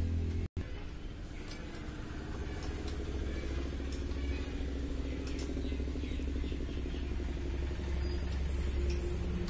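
TVS Apache RTR 180's single-cylinder engine idling steadily, with a few light metallic clicks from hand work on the engine. A faint high hiss joins near the end.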